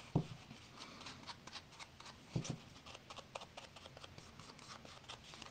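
Faint, irregular dry scratching and tapping of an ink pad being rubbed and dabbed along the edges of paper, with a soft knock near the start and another about two and a half seconds in.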